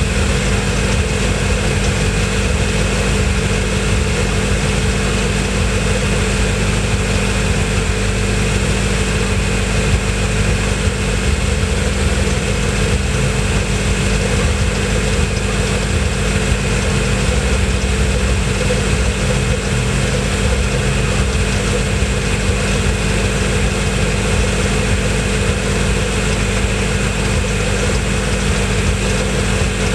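BMW M5 F10's 4.4-litre twin-turbo V8 idling steadily.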